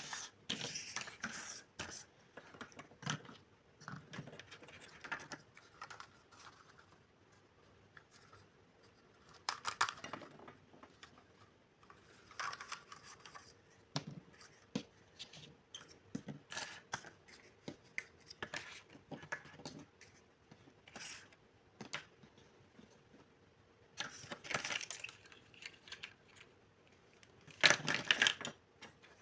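Irregular clicks, taps and short bursts of rustling and scraping from handling plastic kitchen utensils and their packaging, with louder clusters of rustling several times.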